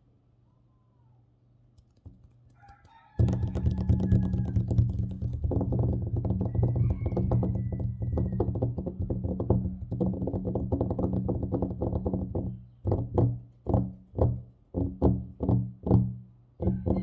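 Fast, aggressive tapping and scratching on a tabletop with the fingers, starting suddenly about three seconds in. Near the end it breaks into separate heavier strokes, about two a second.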